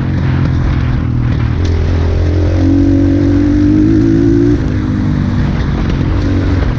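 Dirt bike's engine running under way, heard from the rider's seat. Its pitch climbs a little as it pulls, then drops off sharply about two-thirds of the way through as the throttle is eased.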